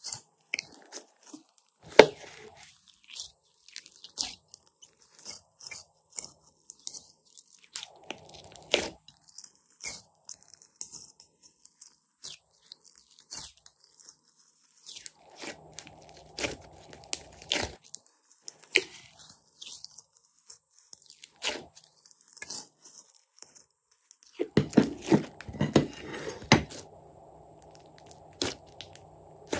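Soft glossy slime being squeezed, poked and stretched by hand, giving irregular crackling pops and squishes, busiest near the end.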